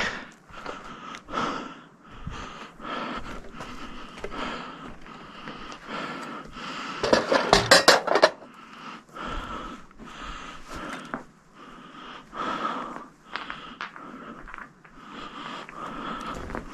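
A man's wheezy breathing over scattered metal clinks and knocks, with a louder burst of clatter about seven to eight seconds in.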